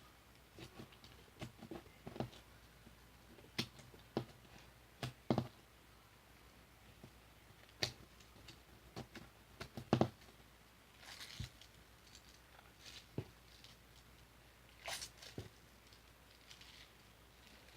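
Slime being handled by hand: irregular soft clicks and squelches, with a few longer sticky smears.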